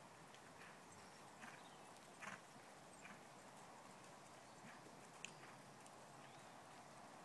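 Faint, distant hoofbeats of a horse moving over a soft arena surface: a few soft, irregular thuds over a steady hiss.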